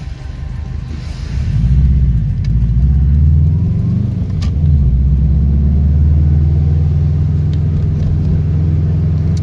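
Turbocharged EJ205 flat-four of a 2003 Subaru WRX, heard from inside the cabin as the car pulls away. The engine note rises about a second and a half in, shifts pitch for a couple of seconds, then settles into a steady drone.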